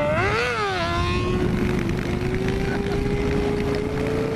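Sport bike's engine revving up hard and dropping in pitch at a gear change just under a second in, then a high steady engine note that climbs slowly as the bike accelerates away. Wind rushes over the microphone of the moving motorcycle throughout.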